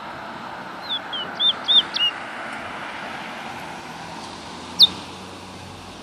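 Caged black songbird singing: a quick run of five short whistled notes about a second in, then one sharp falling note near the end, over a steady hum of road traffic.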